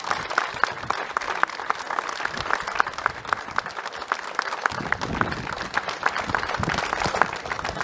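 A crowd applauding, with sharp individual claps close by.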